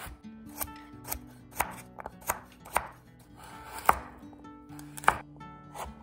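Chef's knife chopping carrots on a bamboo cutting board: several sharp knocks of the blade striking the board, unevenly spaced. The loudest come about four and five seconds in.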